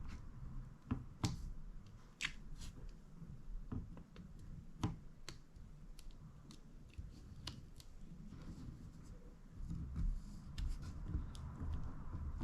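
Scattered small clicks and ticks of hands working with small tools and phone parts.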